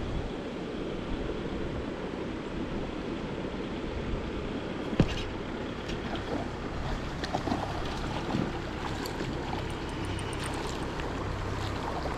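Steady rush of a small creek's flowing water, with a low rumble underneath and a single sharp click about five seconds in.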